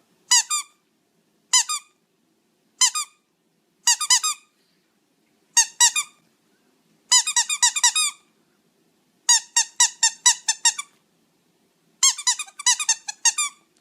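Rubber squeaky dog toy being squeezed over and over: single high squeaks at first, then quick runs of squeaks several to the second.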